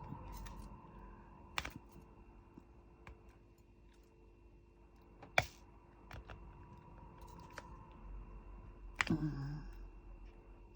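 Scattered light clicks and taps of diamond painting work, a drill pen picking up resin drills and pressing them onto the canvas, with a few sharper clicks standing out. A brief low hum sounds just after the last loud click.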